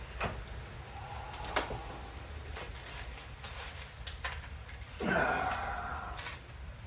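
An adjustable wrench tightening a threaded pipe fitting held in a vise: a few scattered sharp clicks as the wrench is set and turned, and a short rasping scrape about five seconds in, over a low steady hum.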